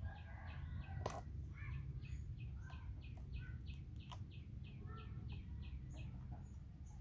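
Two sharp knocks of a cleaver striking a green coconut, about one second in and about four seconds in, the first the louder. A bird chirps in a quick series of short calls, about three a second, through the middle, over a steady low rumble.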